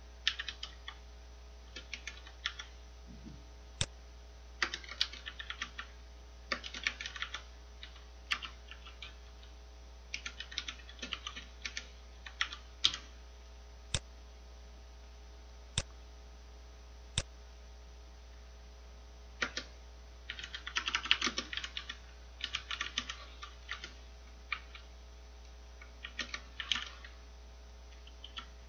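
Typing on a computer keyboard in short bursts of key clicks with pauses between them, and a few single sharper clicks on their own.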